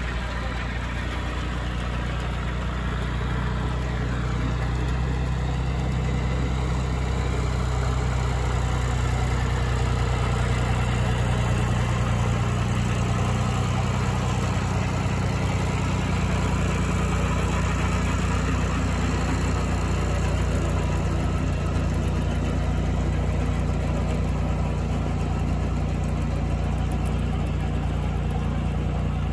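Farm tractor engine running steadily, getting a little louder after about eight seconds.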